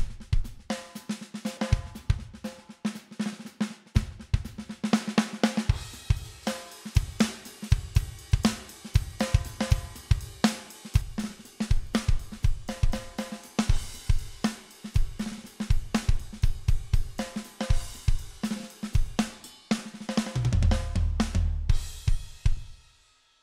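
Sampled drum-kit groove of kick, snare, hi-hats and cymbals, played through guitar amp-simulator, octave-pedal and analog-delay plugins for a saturated, coloured drum sound. It ends in about two seconds of low rumble that dies away.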